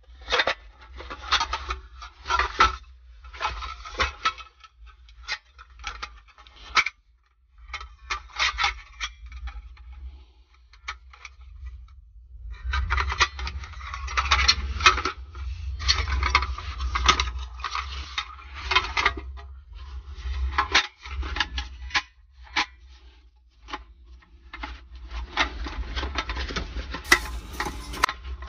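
Irregular rubbing and clattering of objects being handled, like gear or cookware, over a steady low rumble.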